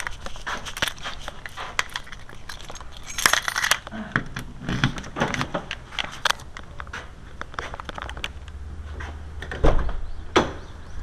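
Keys jingling and clicking, with a louder burst of noise about three seconds in and a loud low knock near the end.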